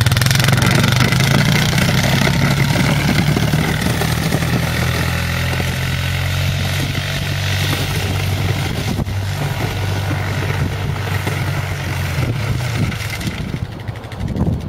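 ATV engine running steadily under load while it pushes a snow plow blade through fresh snow. The engine eases off near the end.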